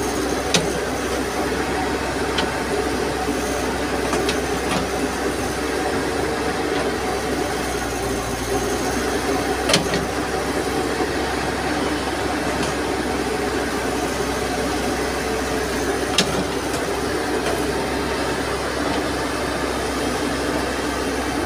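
Excavator's diesel engine running steadily under load as it works its bucket. Three brief sharp clacks stand out over it, about half a second, ten seconds and sixteen seconds in.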